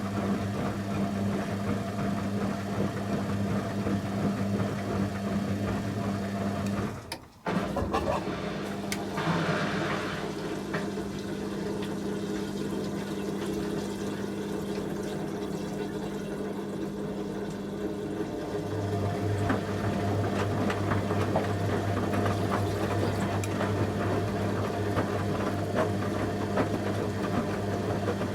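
Candy Aquamatic 100F washing machine running at the start of its final 800 rpm spin: a steady mechanical hum with water gurgling through the drain. The sound cuts out briefly about seven seconds in, and a deeper hum sets in after about eighteen seconds.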